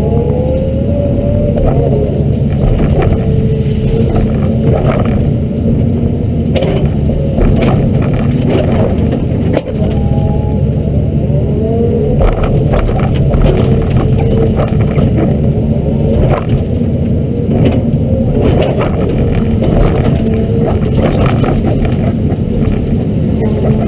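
Hyundai R210 LC-7 excavator's diesel engine running steadily under load while it rakes willow brush, with a hydraulic whine that glides up and down now and then. Sharp cracks and knocks recur throughout as the rake and thumb work the brush.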